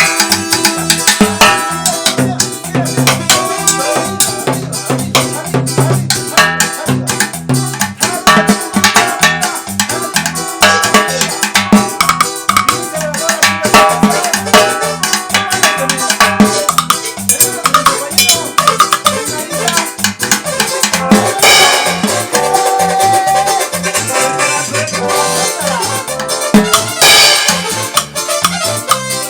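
Cumbia music playing at full level, with a steady beat of drums and percussion under melodic instruments.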